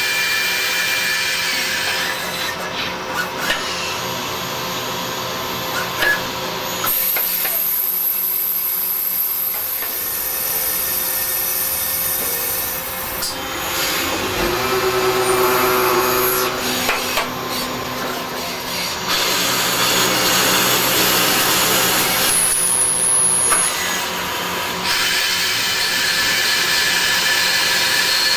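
CNC lathe machining brass parts: a steady machine whine with a high cutting hiss, the sound shifting abruptly several times as the operation changes.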